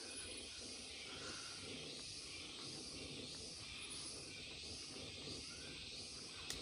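Tropical rainforest ambience: a steady insect chorus hissing and pulsing, with a few brief high-pitched chirps. A single sharp click comes near the end.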